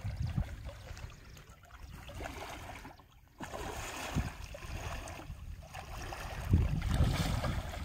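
Water splashing and sloshing as a hooked rohu thrashes at the surface on a single-hook rod and men wade through shallow water. The sound drops out briefly about three seconds in.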